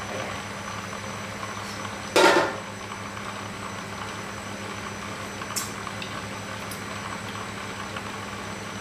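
Steady noise of a gas burner under a simmering wok, with a hum, and one loud metallic clang about two seconds in as the aluminium wok lid is set back down. A small tap follows a few seconds later.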